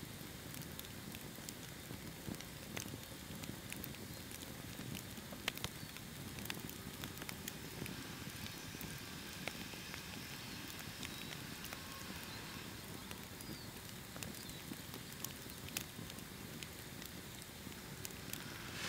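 Wood campfire crackling: irregular sharp pops and snaps over a soft, steady hiss of burning.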